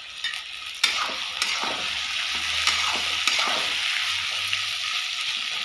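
Chicken and vegetables sizzling in hot oil in a kadhai. The sizzle jumps louder with a sharp click about a second in and holds steady, with a few more clicks of a spatula as the pan is stirred.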